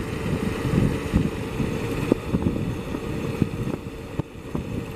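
BMX bike coasting fast downhill on asphalt: tyre rumble and wind buffeting the microphone, with a faint steady hum and a few sharp rattling clicks from the bike.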